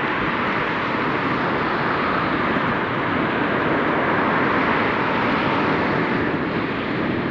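Steady rushing noise of road traffic on a busy city street, growing a little louder about midway.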